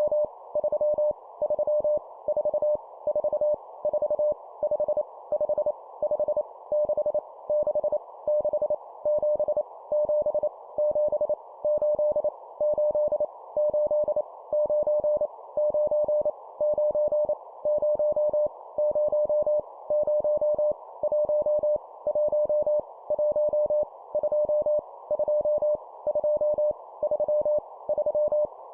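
Morse code (CW) tone of about 600 Hz keyed at 25 words per minute, sending numbers with each number repeated three times, over a steady band of hiss.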